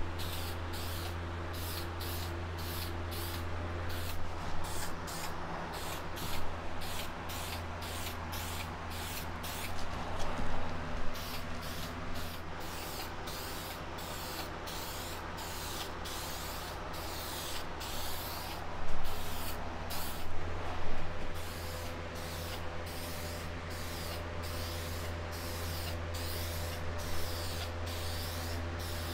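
Aerosol spray can of adhesion promoter hissing in many short passes as coats go onto plastic motorcycle fairings, over the steady hum of a box fan.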